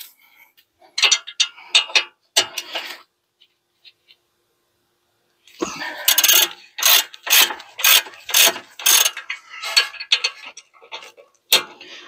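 Ratchet wrench clicking as brake caliper bracket bolts are loosened: a short run of clicks, a pause, then a longer run of ratcheting strokes at about two a second.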